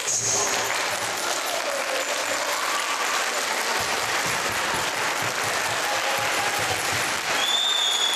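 A crowd of children and adults clapping their hands, a dense patter of claps. A steady high tone joins near the end.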